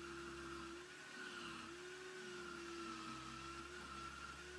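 Parkside mini wood lathe's motor running at speed, a steady whine that wavers slightly in pitch as a chisel cuts into the spinning wood.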